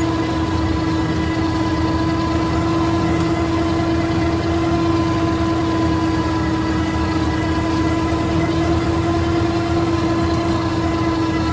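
IMT 533 tractor's three-cylinder diesel running steadily under load while driving a Panex AGM flail mulcher that is mulching grass. A steady high whine sits over the engine's drone, with no change in pace.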